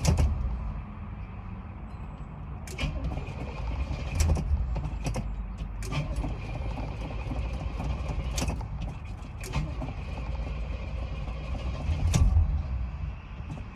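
Car engine with a steady low rumble, broken by sharp clicks at irregular intervals, louder near the start and near the end.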